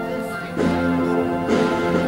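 Slow band music with held chords that change about once a second.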